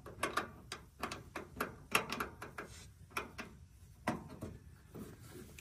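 Allen wrench clicking against the brass service valve of a heat pump's refrigerant lineset as it is seated and turned, a string of irregular light clicks. The valve is being opened to release the refrigerant from the outdoor unit into the lines.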